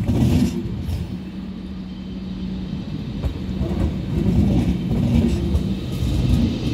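An electric-hauled passenger train rolling slowly on a curve, its wheels rumbling on the rails with a few short clicks.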